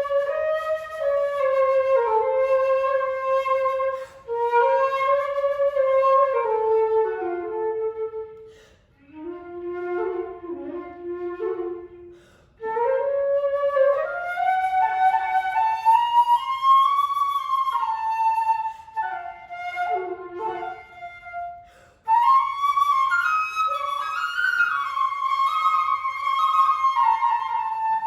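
Solo flute playing a slow, lyrical melody in phrases, with brief breaks between them.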